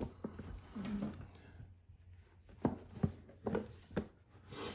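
Cardboard DVD box set and its slipcover being handled by gloved hands: scattered light knocks and taps, with a short papery rustle near the end.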